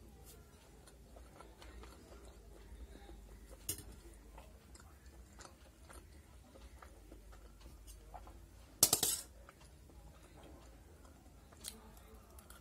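Steel spoon clinking and scraping on a steel plate of pasta: a few scattered sharp clinks, with a louder burst of rapid clinks about nine seconds in.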